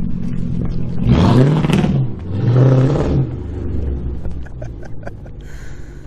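Car engine running straight through its exhaust with the mufflers cut off: idling, blipped up twice in quick succession about a second in, then settling back to a rumbling idle.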